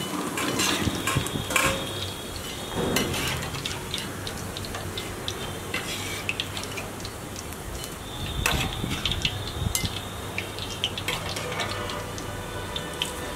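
Cauliflower pieces and curry leaves deep-frying in hot oil with a steady sizzle, broken by repeated metallic clinks and scrapes of a steel slotted skimmer against the pan and a wire mesh strainer as the fried pieces are lifted out.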